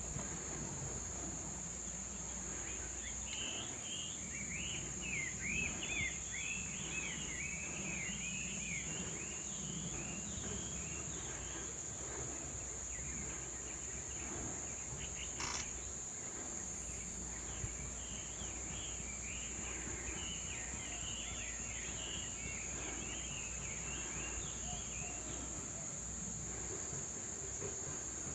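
Outdoor forest ambience: a steady, high-pitched insect drone, with bursts of rapid, chirping bird calls in the first half and again later on. A single soft click comes about halfway through.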